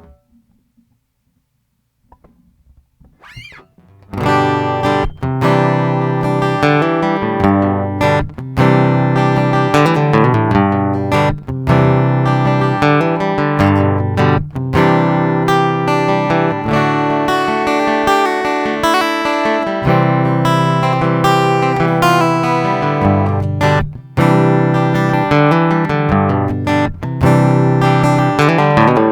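Boulder Creek Gold Series ECGC-1P grand concert acoustic-electric guitar, plugged in through its AB4-TR pickup and preamp, playing chords. It starts about four seconds in and carries on with short breaks between phrases.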